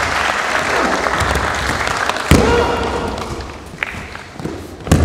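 Audience applauding, fading away after about three seconds, with a heavy thud of a body hitting the mat about two seconds in and another at the very end.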